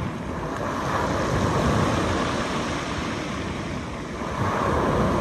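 Small surf breaking and washing up the beach, swelling and easing as the waves come in, with wind on the microphone.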